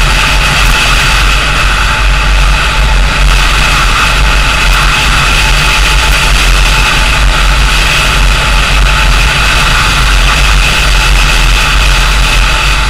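Steady, loud wind rush and low rumble on an action camera's microphone as a vehicle travels at speed along an open road, with engine and road noise mixed underneath.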